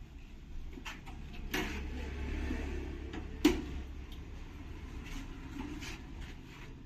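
Scattered light knocks and clicks of hard objects being handled, with one sharp knock about three and a half seconds in, over a steady low hum.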